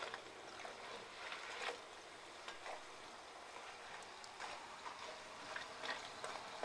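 Plantain slices deep-frying in a pot of oil, a faint steady sizzle, with scattered light clicks and scrapes of a perforated metal spatula stirring them against the pot.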